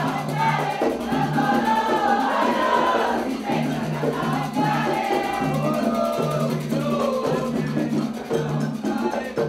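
Candomblé ritual chant sung by a group of voices, with a low steady tone underneath that stops and starts about once a second.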